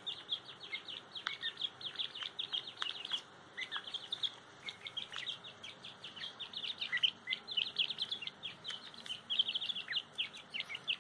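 Grey francolin (teetar) chicks peeping: a rapid, unbroken stream of short, high chirps.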